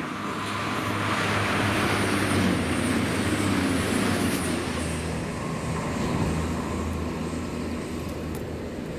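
Class 221 Super Voyager diesel-electric multiple unit passing, the steady hum of its underfloor diesel engines under a rush of wheel and air noise that is loudest about two to four seconds in and then eases.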